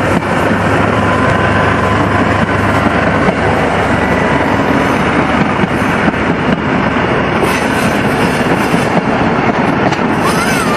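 Train running along the track, a loud steady noise of the moving train.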